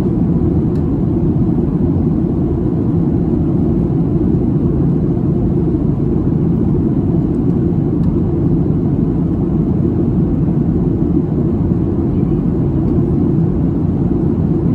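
Cabin noise of a Boeing 737-800 in flight, heard from a window seat over the wing: its CFM56-7B jet engines and the airflow make a steady low rumble that does not change.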